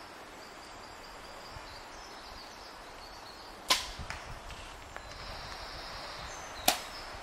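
Two arrows loosed from a bow at a 3D foam target, each a single sharp crack with a short tail, about three seconds apart.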